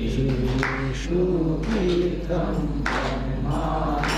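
Voices chanting a Sanskrit prayer to the guru in slow, drawn-out notes that glide between pitches, sung as the closing prayer of a satsang.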